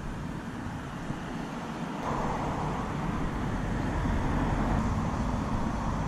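Steady outdoor background noise: a low rumble with a hiss above it, growing slightly louder about two seconds in.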